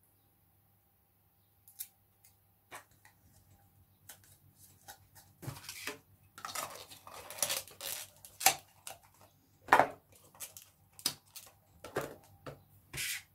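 Thin clear plastic pots and lids being handled: scattered clicks, snaps and crinkles as lids are pulled off and cups pressed onto a stack. Quiet for the first couple of seconds, then busier and louder from about halfway on.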